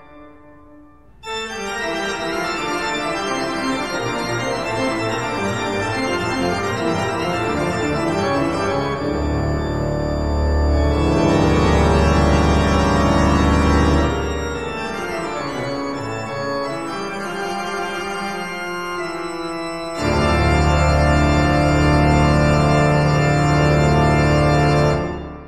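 Instrumental music of slow, held keyboard chords in an organ-like sound, with deep bass notes coming in about nine seconds in and again about twenty seconds in, fading out at the end.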